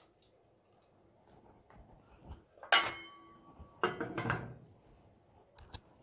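Metal lid being put on a saucepan. A sharp ringing clink about three seconds in is followed about a second later by a shorter scraping clatter as the lid settles onto the rim.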